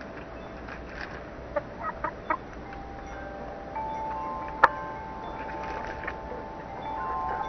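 Domestic hens clucking with a few short calls, over a wind chime ringing in long held tones at several pitches. A single sharp tap about halfway through is the loudest sound.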